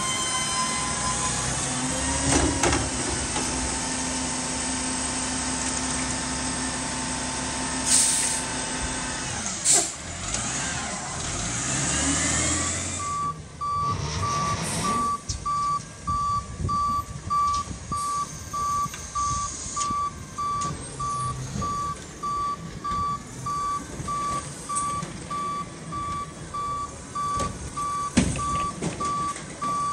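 Front-loader garbage truck's engine and hydraulics running with a falling whine at the start, and two sharp metallic clunks about eight and ten seconds in. About thirteen seconds in, its back-up alarm starts beeping steadily and keeps on, with a loud knock near the end.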